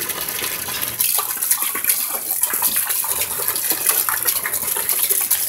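Water from a garden hose pouring and splashing into the water of a filled inflatable paddling pool, a steady splashing rush that grows louder about a second in.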